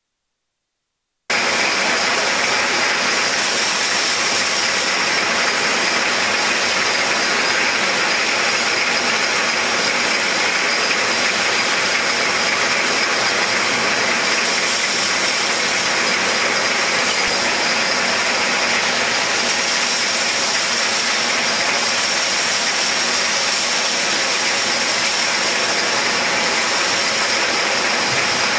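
Glass-bottle filling line running: a steady, dense hiss-like machine noise with a constant high whine, cutting in abruptly about a second in.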